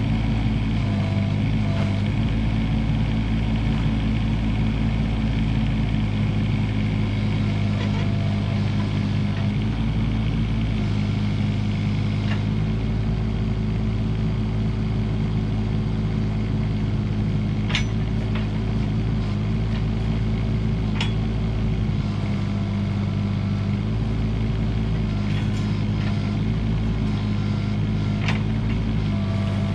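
Komatsu PC16 mini excavator's diesel engine running steadily under working revs, with a hydraulic whine that shifts in pitch as the load changes and a few sharp metallic knocks.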